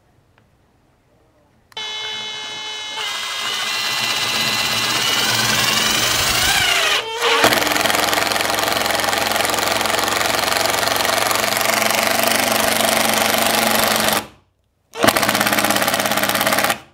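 Makita BTD142 18-volt cordless impact driver driving a bigger Phillips screw. The motor whines up about two seconds in, and a second later the impact mechanism starts hammering in a steady rattle that lasts about eleven seconds. It stops briefly, then gives another short burst of hammering near the end.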